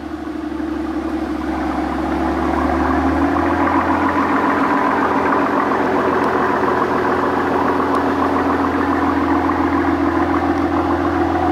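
Mercedes-AMG S65 Coupe's 6.0-litre twin-turbo V12 idling steadily through its exhaust. It grows a little louder over the first couple of seconds, then holds an even idle.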